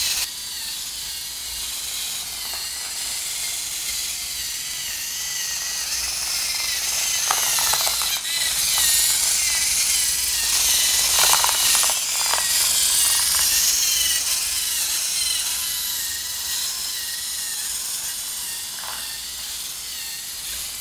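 LEGO Mindstorms NXT robot's servo motors and gear trains whining as it follows a line, the pitch wavering up and down as the motors speed up and slow down to steer. A few short rattles come in the middle and once near the end.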